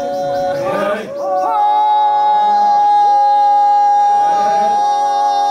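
Group of men singing a traditional field-work chant (ohnet) unaccompanied. After short phrases, a high note is held steadily from about a second and a half in, over lower held voices.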